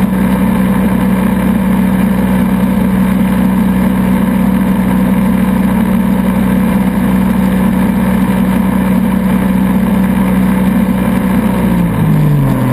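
Barefoot ski boat's inboard engine running steadily at speed, with rushing water and wind noise. Near the end the engine pitch drops as the throttle comes back, once the skier is off the rope.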